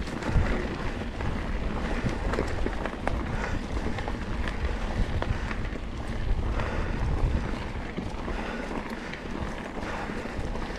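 Mountain bike riding a rough dirt trail downhill: wind buffeting the microphone over the rumble of the tyres, with many short clicks and knocks as the bike rattles over rocks.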